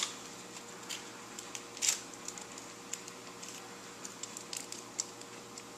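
Faint crinkling and small clicks of a suture packet being handled and peeled open, with one louder crinkle about two seconds in. A faint steady hum sits underneath.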